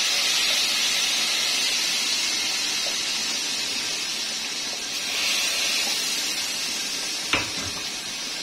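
Hot tempering oil with cumin and crushed red chilli poured into the kadhi, sizzling in a steady hiss that slowly fades and swells again about halfway through. A single sharp knock near the end.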